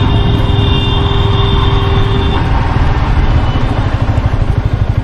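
Motorcycle running on the move, engine and wind noise filling the low end, with a steady high tone for about the first two and a half seconds. Near the end the sound takes on a fast, even pulsing.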